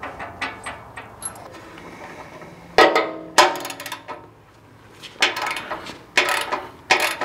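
Hand wrench working on the mounting bolts inside a steel bumper, its metal knocking against the bolts and the bumper: light ticks at first, then sharp metallic clanks that ring briefly, two close together about three seconds in and several more toward the end.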